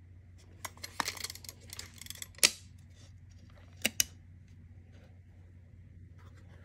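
Handling clicks and rattles as a steel tape measure is moved and set against the metal of an electric scooter's disassembled hub motor: a quick run of small clicks and scrapes ending in one sharp click, then two more clicks close together a moment later. A faint steady hum sits underneath.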